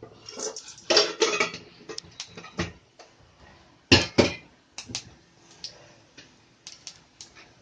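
Metal utensils clinking and tapping against a kadai in irregular short knocks, a sharp loud one about four seconds in, as mustard seeds and urad dal go into hot oil for tempering.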